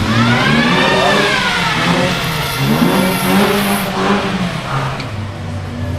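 A car accelerating, its pitch sweeping up and back down, with a high hiss for about a second and a half in the middle.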